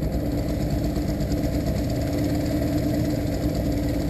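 Suzuki DT40 two-stroke outboard motor running steadily at low speed, a constant drone with one held tone.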